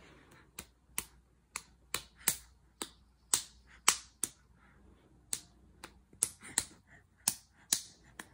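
A baby clapping his hands: a run of sharp, uneven claps, about two a second, with a short pause midway.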